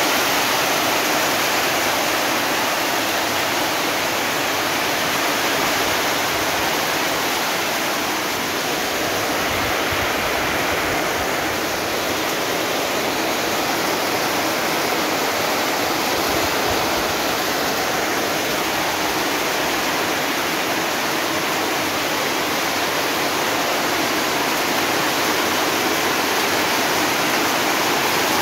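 Torrential monsoon rain drumming steadily on corrugated metal roofing, with water streaming off the roof edges.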